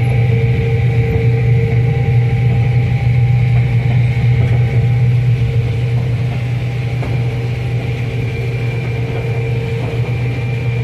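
Combine harvester running steadily while harvesting corn, heard from inside the cab: a loud, even low drone with a steady higher whine over it.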